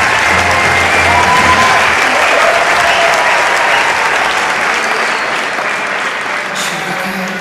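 Audience applauding, slowly fading; the live band's last notes die away in the first couple of seconds.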